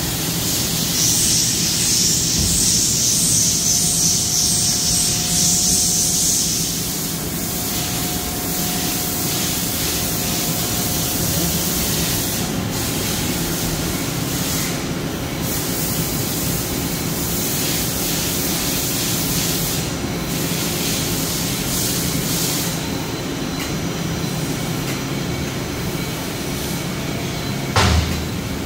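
1995 Dainichi F50 CNC turret lathe running under power, with a steady machine hum and a faint whine. A loud hiss runs for about five seconds near the start, and a brief sharp sound with a quick falling sweep comes near the end.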